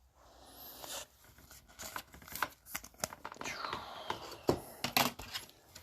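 Trading card being handled and slid into a plastic top loader: scattered light clicks, rustles and scrapes, with a longer sliding scrape about three and a half seconds in.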